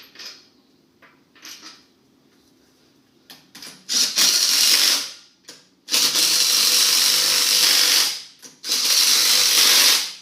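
Small cordless power wrench running the wheel bolts down in three long runs, with a few faint metal clinks of bolts being handled before it.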